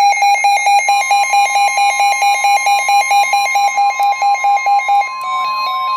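Electronic emergency-alert tone beeping rapidly, about five beeps a second, with a steady higher tone joining about a second in. Near the end the beeping stops and short gliding tones take over.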